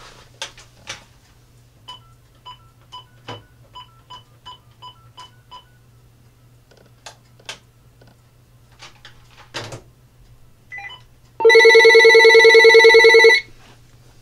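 A few clicks and a run of about ten short, evenly spaced beeps as the line is dialled, then the Uniden EXAI7980 900 MHz cordless phone rings once near the end: one loud, warbling electronic ring about two seconds long, showing the ringer works on a test call.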